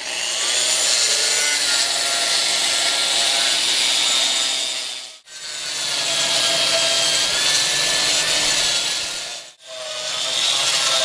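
AGP SM5 concrete grinder, a 2200 W machine with a 125 mm diamond cup wheel, running and grinding: a steady grinding noise over a high motor whine. The sound cuts out sharply twice, about five and nine and a half seconds in, each time resuming at once.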